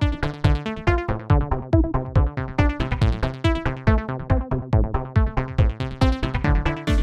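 Electronic dance music: a fast, steady pattern of short pulsing synthesizer notes over a driving bass beat.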